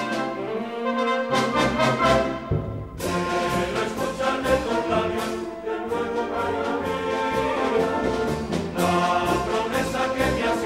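A charanga, a street brass band of trumpets, saxophones and a sousaphone, playing a marching tune over a steady drum beat.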